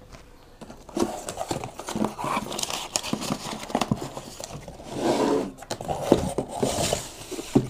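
Cardboard shipping box being unpacked by hand: flaps and packing paper rustling and crinkling, with irregular knocks of the boxes being handled, starting about a second in.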